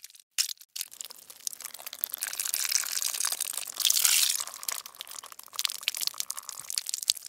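Ketchup squirted from a Heinz plastic squeeze bottle: a run of wet, crackling squirts and splutters starting about a second in, loudest about four seconds in.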